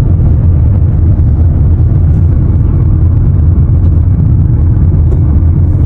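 A car's steady low rumble, even in level throughout.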